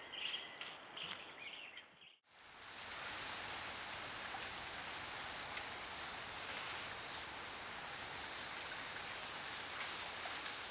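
Steady night chorus of insects, a continuous high-pitched drone over an even hiss. It starts after a brief silent break about two seconds in. Before it, dry leaf litter rustles and crackles as peccaries root through it.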